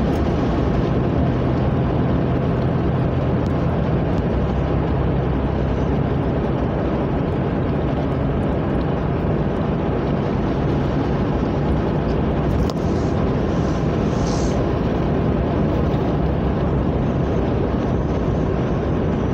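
Steady driving noise of a car heard from inside its cabin: engine hum and tyre-on-road rumble at cruising speed.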